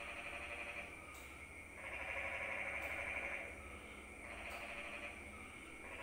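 Night chorus of calling animals, a shrill massed trilling that swells and falls back in waves every second or two, over a faint low hum.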